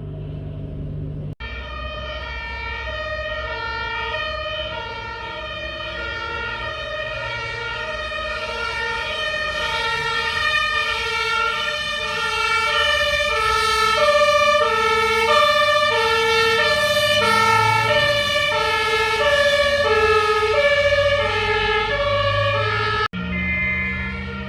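Two-tone emergency siren alternating steadily between a higher and a lower note, about two notes a second. It grows louder over the first half and then holds steady.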